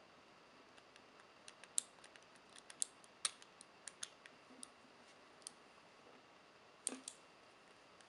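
Steel chain-link handcuffs clinking as the cuffed wrists twist and turn. It comes as a scatter of small, sharp metallic clicks, thickest from about one and a half to five seconds in, with a louder double click near the end.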